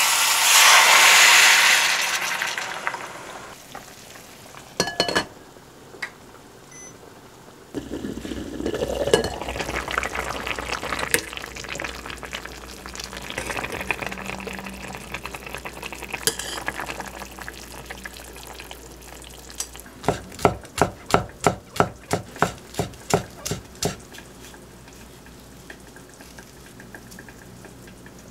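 Sauce poured into a hot stainless pot, sizzling loudly for about two seconds. Later the braising liquid bubbles around pork belly as it is turned with metal tongs, with a run of about a dozen quick clicks, roughly three a second, near the end.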